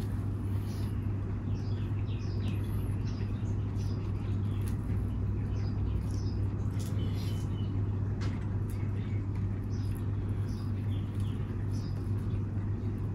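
Crab shells being picked apart by hand: scattered small cracks and wet squishing, over a steady low electrical hum, with short high chirps.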